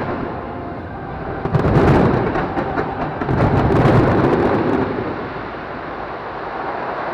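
Fireworks shells bursting, booming with dense crackling, in two loud swells about two and four seconds in, then easing into a steadier, lower rumble.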